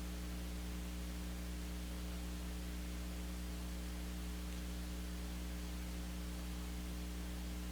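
Steady electrical mains hum with a low buzz and an even background hiss, unchanging throughout.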